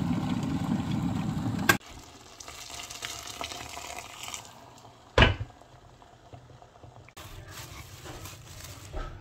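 Glass electric kettle at a rolling boil, a loud low rumble that cuts off abruptly about two seconds in. Then a quieter hiss as the boiling water is poured into a pan of chicken-and-chickpea curry, and a single loud thump about five seconds in.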